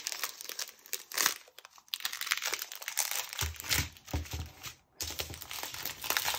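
Small clear plastic bags of diamond painting drills crinkling and rustling as they are handled and laid out in strips on a table, with a few soft low knocks in the second half.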